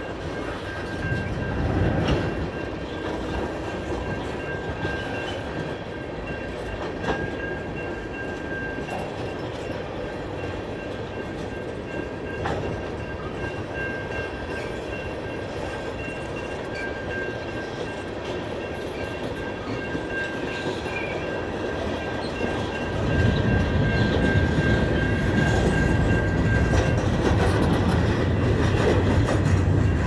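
A CN freight train's cars rolling past: a steady rumble of steel wheels on rail with clickety-clack over the joints, and a thin high ringing that comes and goes. The rumble grows louder and heavier about three-quarters of the way through.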